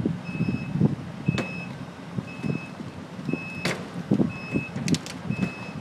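Back-up alarm of a work vehicle beeping steadily, one high beep about every second. Under it is a low, uneven engine rumble, with a few sharp knocks or clanks, including a quick cluster near the end.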